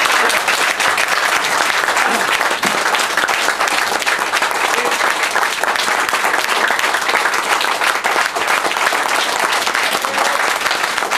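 Audience applauding: a roomful of people clapping steadily in a standing ovation.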